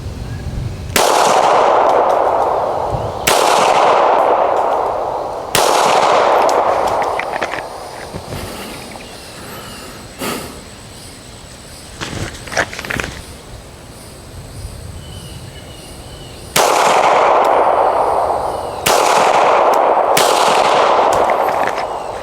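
Handgun firing two strings of three shots, about two seconds apart, with a pause between the strings. Each shot leaves a long ringing tail. A few faint clicks come between the strings.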